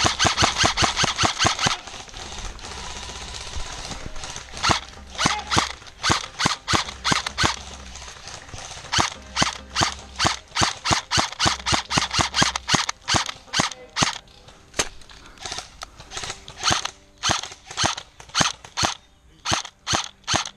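Airsoft guns firing: a rapid full-auto burst in the first two seconds, then a long run of single shots, two or three a second, broken by short pauses.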